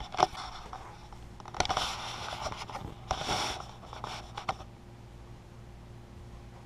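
Handling noise as the camera is moved and set in place: a couple of sharp clicks, then scraping and rustling for about three seconds that stops short, leaving faint room hum.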